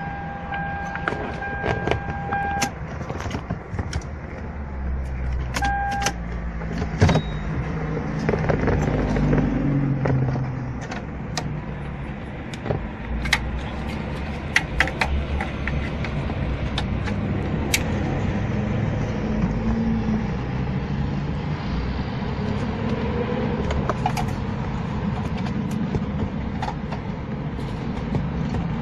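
Inside a car: a steady electronic beep tone near the start and again briefly about six seconds in, many sharp clicks of switches and controls, and the engine running with a low rumble that swells between about seven and twelve seconds in.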